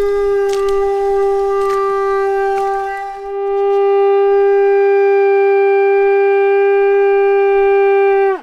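Conch shell horn blown in one long, steady note. It swells louder about three seconds in and ends with a short downward slide in pitch near the end.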